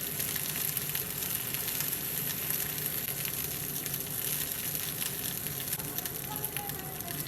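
Green peas frying in a pan for masala matar, a steady sizzle.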